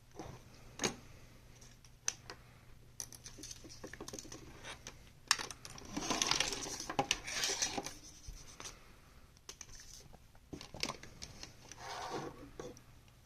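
Small metal objects, such as a pocket knife and tools, handled and set down on a hard surface: scattered clicks and taps, with a stretch of scraping and clattering about six to eight seconds in.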